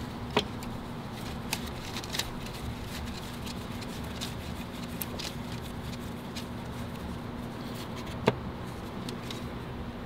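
Light metallic clicks and taps as a starter mounting bolt is threaded in by hand, with two sharper clicks, one near the start and one near the end, over a steady low hum.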